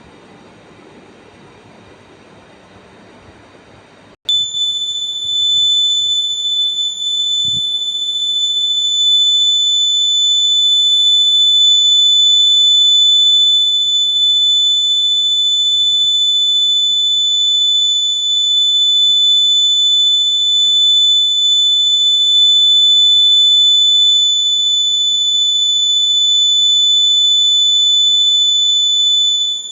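Electronic buzzer sounding one continuous high-pitched tone that switches on suddenly about four seconds in and then holds steady without a break.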